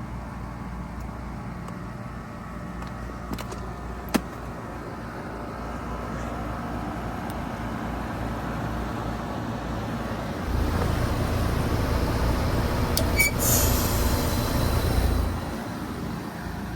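Trane XR14 3-ton heat pump outdoor unit running as it finishes a defrost cycle. There are two sharp clicks a few seconds in and the noise builds slowly. A heavier low rumble starts about ten seconds in, a brief hiss comes near thirteen seconds, and the sound drops off near the end.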